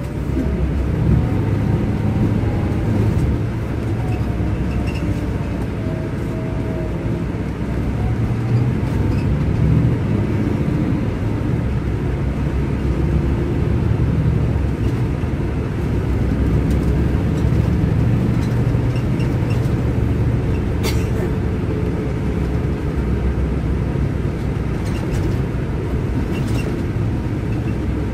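Scania K400IB coach's rear-mounted diesel engine running, heard from inside the passenger cabin as a steady low rumble that swells and eases slightly. A single sharp click is heard about two-thirds of the way through.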